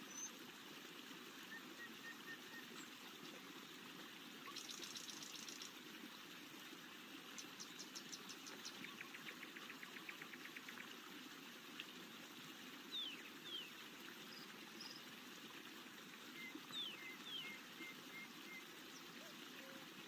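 Faint, steady rushing of a flowing stream, with scattered songbird chirps over it, several rapid trills and a few short falling whistles.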